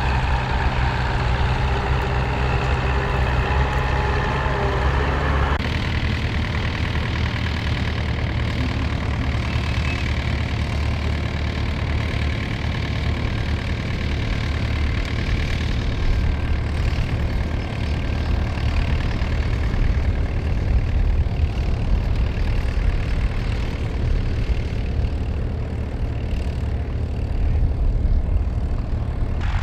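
Diesel tractor engines working steadily under load while pulling mounted ploughs through the soil. First a Ford 4100's three-cylinder diesel, then, after an abrupt change about five and a half seconds in, a red vintage tractor's engine.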